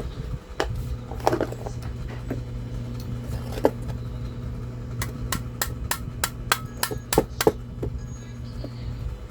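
Sharp clicks and knocks of a hand tool working at the glue that holds a circuit board to an aluminium heatsink, with a quick run of about ten clicks, some three a second, in the second half. Under them runs a steady low hum that starts just after the beginning and cuts off near the end.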